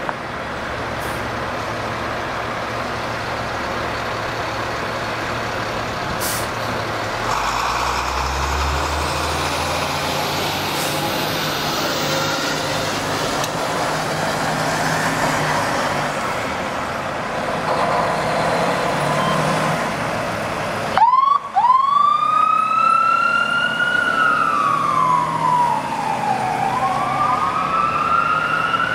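Fire engine's diesel engine running and pulling away, its low rumble growing about a quarter of the way in. About two-thirds of the way through, its siren starts: a wail that rises and falls slowly, about one sweep every three to four seconds, responding Code 3.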